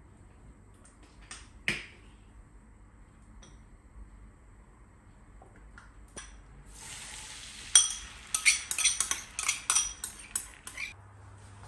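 Eggs being beaten with a fork in a bowl for an omelette: quick clinks of the fork against the bowl, about five a second, over a steady hiss in the second half. A single sharp knock sounds about two seconds in.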